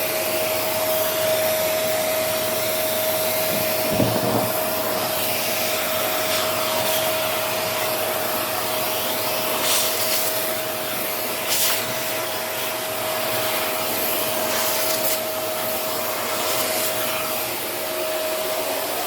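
Vacuum cleaner running steadily with a constant whine, sucking at a down jacket, with a few brief surges of rushing noise as the fabric is drawn against the nozzle. The whine drops out near the end.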